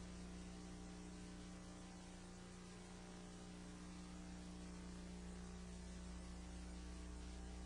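Steady low electrical hum with an even hiss, mains hum and noise in the room's microphone and sound system, with no other events.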